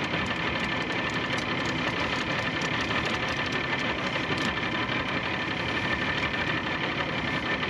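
Boat motor running steadily at idle.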